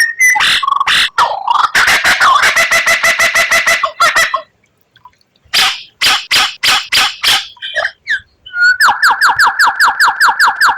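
White-rumped shama (murai batu) singing: sharp clicking notes and a dense trill, a short pause, then a fast run of down-slurred whistled notes at about eight a second, the rapid burst phrase that keepers call a 'tembakan'.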